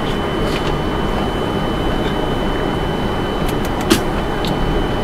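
Steady flight-deck noise inside a Boeing 747-400 freighter: an even rushing hum with a thin constant whine, and a few sharp ticks, the loudest about four seconds in.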